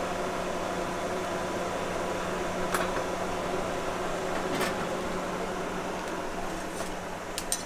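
Steady mechanical hum of a stall kitchen, with a few light clinks of a metal ladle, pot lid and soup bowl as broth is ladled out and the pot is covered.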